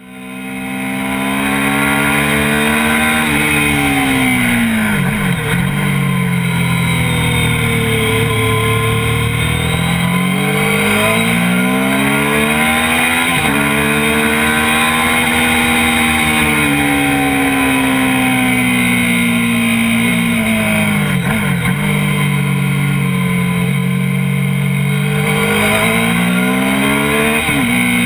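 Sport motorcycle with an aftermarket exhaust running hard on track: the engine note climbs and falls through the revs, broken by several sudden pitch changes at gear shifts.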